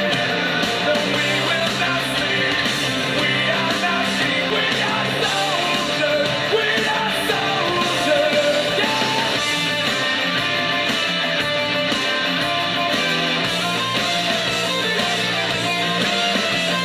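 Hard rock song with a singing voice, electric guitars and a steady beat, played through a homemade Bluetooth speaker built into a 40 mm ammo box.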